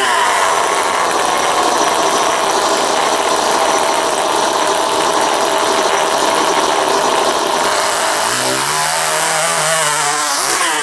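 RC micro pulling tractor's small nitro model engines running at high revs, held at the sled hitch. About eight seconds in the pitch starts to waver and rise and fall as the tractor pulls off down the track.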